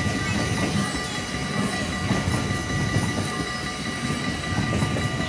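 A train of Dutch NS blue-and-yellow intercity passenger coaches rolling past at close range. Steady wheel-on-rail rumble with a constant clatter of wheels over the track, and a thin steady high tone running underneath.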